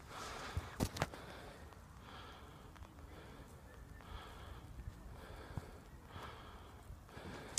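Breaths repeating about once a second, with two sharp clicks a little under a second in.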